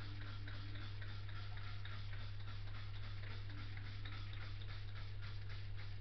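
A steady low hum with a fast, even ticking, about four ticks a second, like a small motor running.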